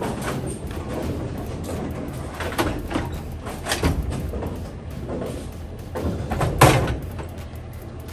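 Bowling ball return: a ball comes up through the return hood and rolls down the rails, knocking against the rack, with the loudest clack about six and a half seconds in. Under it a steady low hum of the alley.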